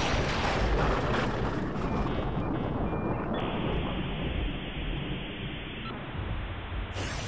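Outro sound design under an animated end screen: a continuous rumbling noise with a deep low end, like distant thunder or a storm, and no speech.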